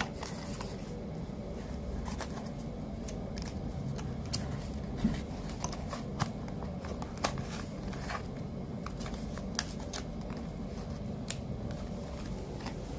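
Cardboard fruit box being folded by hand: irregular sharp clicks and light scrapes as the card sides are creased and pressed into place, over a steady low background noise.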